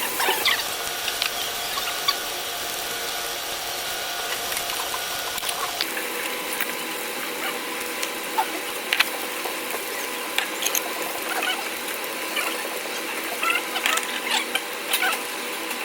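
Close-miked chewing and mouth sounds of someone eating barbecued meat: irregular wet clicks and smacks over a steady low hiss, busiest near the start and toward the end.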